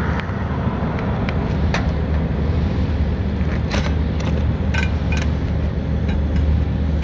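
Scattered sharp clicks and light metal taps as sheet-metal step flashing and tin snips are handled, over a steady low rumble.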